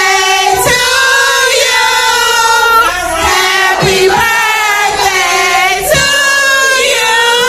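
Singing voices holding long, steady notes, with some music underneath.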